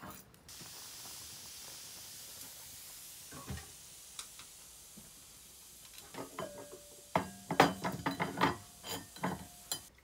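Food sizzling in hot oil in a steel pan, a steady hiss that starts suddenly and slowly fades. Then, past the middle, a quick run of clanks and clinks of steel pots and utensils, some ringing briefly.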